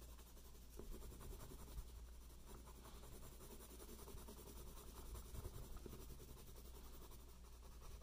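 Pen drawing on paper: faint, continuous scratching strokes of doodling.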